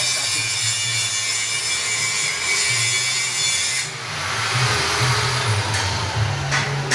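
Kerupuk slicing machine running, its spinning circular blade cutting through logs of fish-cracker dough with a steady hiss over the motor's hum. The hiss dips briefly about four seconds in, and a few sharp clicks come near the end.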